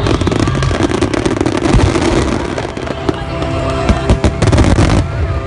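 Fireworks finale barrage: a dense run of shell bursts and crackling, with music playing underneath from about halfway through. The bangs stop suddenly near the end, leaving only the music.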